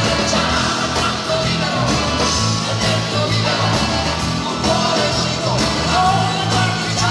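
Live rock band playing: electric guitar lines over bass and drums, with a man singing lead.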